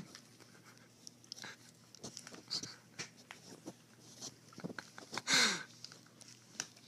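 Foil-plastic Doritos chip bag crinkling and rustling in short irregular crackles as a cat with its head stuck inside it squirms, with a louder burst of crinkling about five seconds in.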